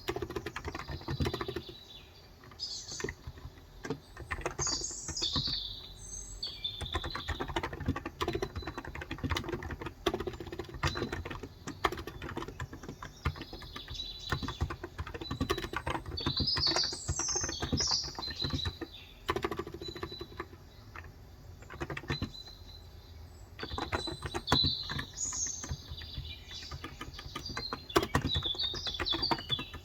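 Typing on a Cox Endeavor tenkeyless keyboard with 35 g electro-capacitive (non-contact) switches: a dense, uneven run of keystrokes. Birds chirp in several spells over the typing.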